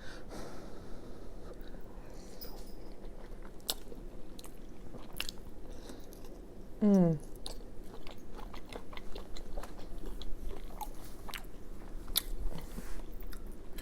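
Close-miked eating sounds: a woman chewing a mouthful of tater tot casserole, with scattered soft, wet mouth clicks. About halfway through comes a short voiced sound from her that slides down in pitch, the loudest moment.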